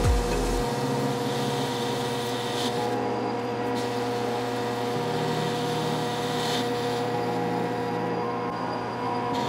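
Metal lathe running under power with a steady gear whine, its tool cutting away the steel tube of a drive shaft.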